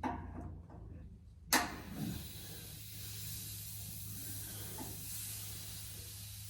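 A sharp click about a second and a half in, then a steady hiss of pressurised air escaping as the air is bled out of radiator pipework held at 3 bar for a pressure test, until water comes through.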